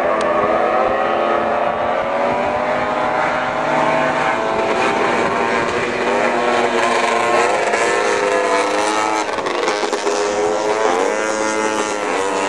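Several vintage 340-class racing snowmobiles' two-stroke engines running hard together, their whine rising and falling as the sleds ease off and accelerate through the turns, with a sharp rise in pitch near the end.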